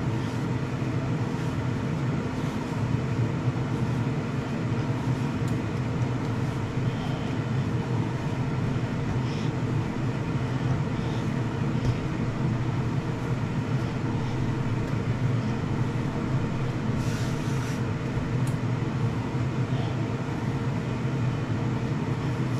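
Ninja dual-zone air fryer running on the bake setting while it preheats: a steady fan drone with a fixed hum. Soft sounds of dough being kneaded by hand come through now and then.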